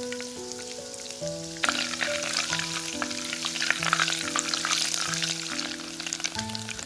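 Butter boiling in a saucepan, crackling and sizzling as the water in it boils off, the first stage of browning butter, with a silicone spatula stirring through it. The crackling grows much denser about a second and a half in. Background music with sustained notes plays throughout.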